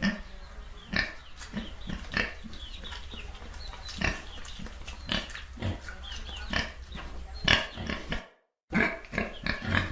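Domestic pigs grunting over and over, short oinks coming about twice a second. The sound cuts out completely for a moment about eight seconds in, then the grunting resumes.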